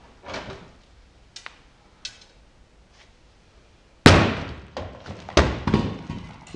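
A 24-pound half concrete block dropped from about 8 feet slams onto the plastic lid of a Milwaukee Packout rolling toolbox about four seconds in. Several smaller knocks follow as the block falls away and the box is knocked back onto its wheels.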